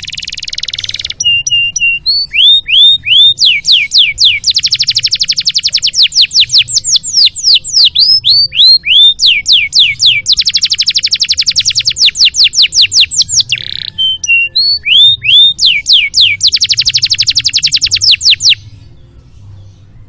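Canary singing a long, loud song: repeated downward-sweeping whistles alternating with very fast trills, stopping abruptly near the end. A faint low hum runs underneath.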